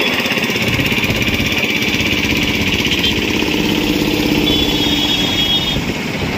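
Motorcycle traffic heard from a moving motorcycle: engines running with steady wind and road noise, no sudden events.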